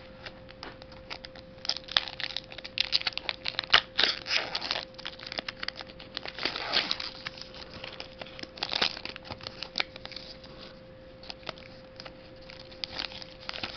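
Foil wrapper of a Pokémon trading-card booster pack being torn open and crinkled: a run of sharp crackles and rustles, busiest in the first two thirds and again briefly near the end. A faint steady hum sits underneath.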